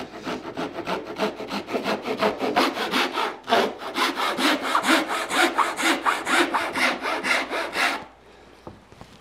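Thin-bladed pull saw cutting through a wooden bar to a marked line for a tenon, in quick, even strokes at about four to five a second. The sawing stops about eight seconds in.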